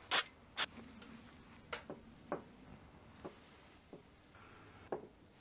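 Cleaned engine valves from a Classic Mini cylinder head being stood upright one after another on a paper-covered workbench: light, separate metal taps, about six of them, the first two loudest.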